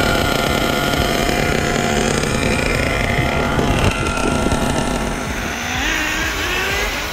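Radio-controlled cars running, their motors revving up and down with a rising pitch in the second half.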